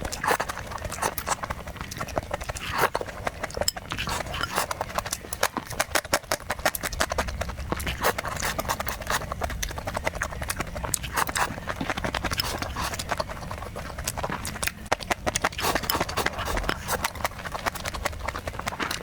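A person eating close to the microphone: chewing and lip-smacking, heard as a dense, continuous run of quick clicks and smacks.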